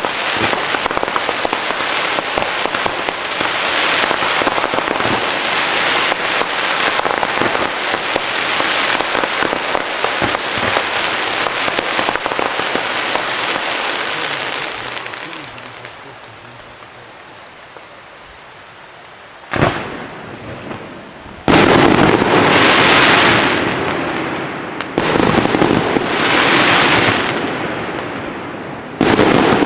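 Fireworks display: dense crackling for about fourteen seconds, dying away, then a single sharp bang about twenty seconds in, followed by three loud bursts that each trail off into crackle.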